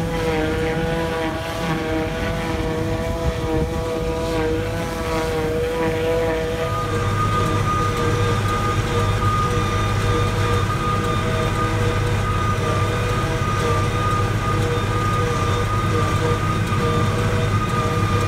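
Tractor engine working in a silage field, its note wavering, as a classic Massey Ferguson tractor pulls a silage trailer. About six seconds in this gives way to the steady drone and high whine of a tractor driving a JF FCT 1050 trailed forage harvester that chops grass and blows it into a trailer alongside.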